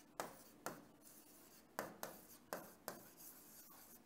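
Faint handwriting: a run of about eight short, quick writing strokes at an uneven pace.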